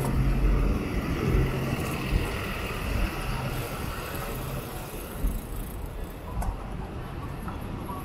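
Road traffic: motor vehicles running by with a low rumble, and a steady engine hum over the first couple of seconds.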